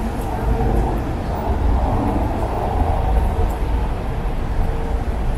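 Street traffic noise: a steady low rumble of vehicle engines with a faint steady hum.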